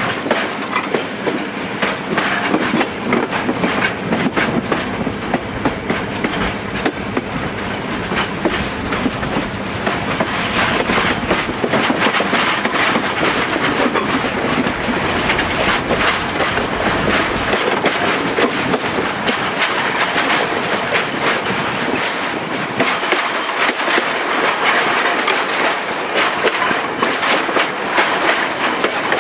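Train of passenger coaches behind a diesel and a steam locomotive running along the track, its wheels clicking over the rail joints in a dense, continuous patter over a steady rumble.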